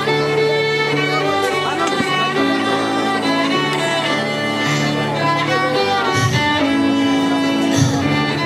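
Violins playing a slow piece with long held notes that change about once a second. A couple of low thuds come near the end.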